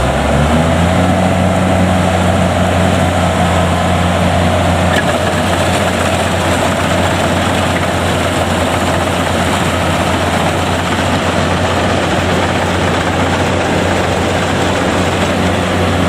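Combine harvester's diesel engine running steadily, a continuous low drone with no break.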